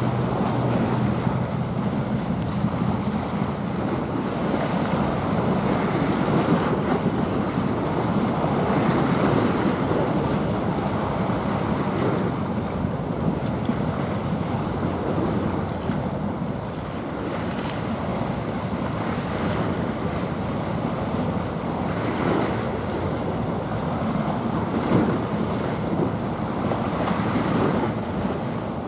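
Wind buffeting the microphone over choppy sea water: a loud, steady rushing noise that swells and eases in gusts. A low steady hum sits underneath at the start and fades out after a second or two.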